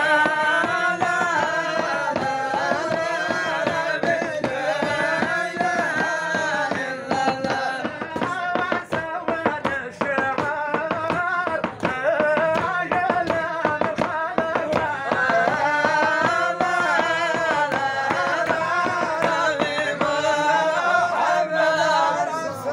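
Group of men singing Moroccan madih (praise songs for the Prophet) together in a chant-like melody, with a percussive beat running under the voices.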